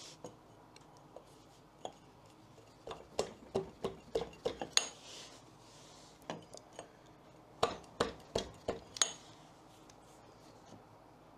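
Light metallic clinks and taps of metal parts being handled and fitted onto the gearbox output shaft of a Royal Enfield Bullet 500 engine during primary drive reassembly. They come in two clusters, around three to five seconds in and again around eight to nine seconds in.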